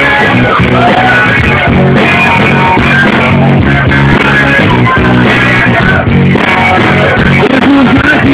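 Rock band playing live and loud, guitar to the fore, in a steady instrumental stretch with no clear vocal line.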